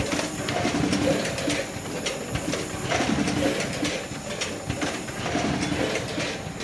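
Tomato packing line running: a conveyor and an automatic labelling machine. It makes a steady mechanical clatter with irregular clicks and knocks as the plastic tubs move along.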